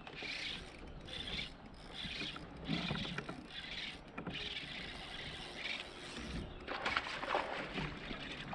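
Fishing reel being cranked in short repeated spurts, about one a second, then a louder rushing sound near the end.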